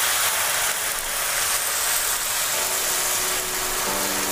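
Ground ajwain and cumin paste sizzling in hot mustard oil in a kadhai, a steady frying hiss, stirred with a metal slotted spoon. A faint low hum comes in near the end.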